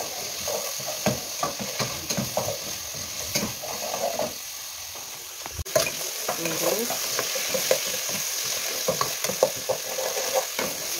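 Garlic, onion and ginger frying in oil in an aluminium pan, sizzling steadily, while a spoon scrapes and clicks against the metal as they are stirred.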